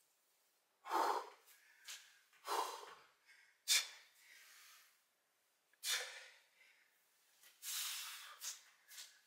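A man breathing hard under exertion while lifting a kettlebell: several sharp, hissing exhales, each a fraction of a second long and spaced a second or two apart.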